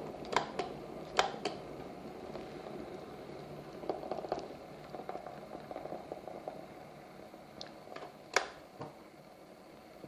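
Electric kettle with an egg in its near-boiling water, simmering softly with a steady low hum and scattered small ticks and clicks. There is a sharper click about eight seconds in.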